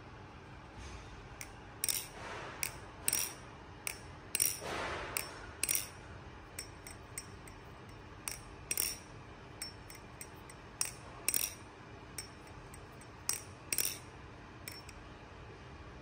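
Balisong butterfly knife being swung open and closed by hand: an irregular run of sharp, slightly ringing metal clicks and clacks as the handles strike the blade tang and each other and the latch snaps, with a couple of soft rubbing sounds of the hand between them.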